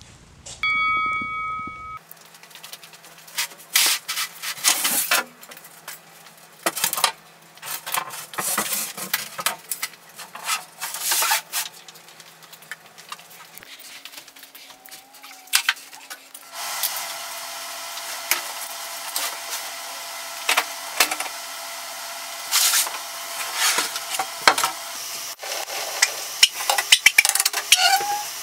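A short ringing chime at the start, then scattered knocks, clicks and scrapes of boards and tools being handled at a workbench and table saw. A steady hiss starts about halfway through and runs under the clatter.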